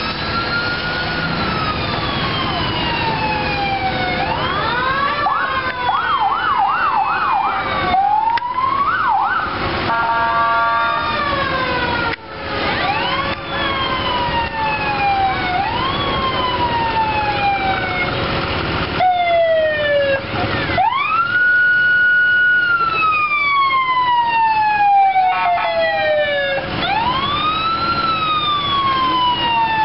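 Fire truck sirens sounding as several engines pass, overlapping wails that each rise and then slowly fall. About five seconds in, one switches briefly to a fast yelp, and around ten seconds in there is a short stepped pattern.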